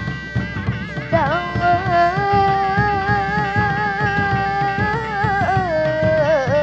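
Sundanese reog dogdog ensemble music: dogdog drums keep a dense, steady rhythm. About a second in, a sustained melody line joins, holding long notes with wavering ornaments.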